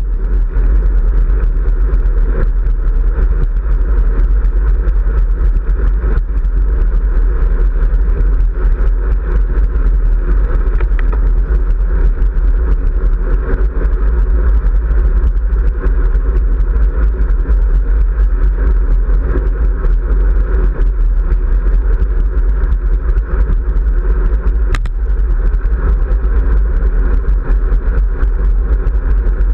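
Steady wind buffeting over a handlebar-mounted action camera's microphone on a moving road bike, a loud, deep rumble mixed with road and tyre noise.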